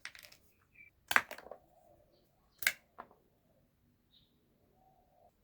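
Cardboard and craft tools being handled while building a model: three sharp clicks, one about a second in with a short rustle after it and two close together near the middle.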